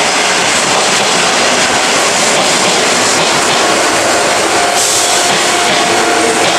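Izuhakone Railway 7000-series electric train passing at close range, a steady loud rush of wheels on rail and running gear. A level-crossing bell rings underneath and comes through more clearly from about five seconds in.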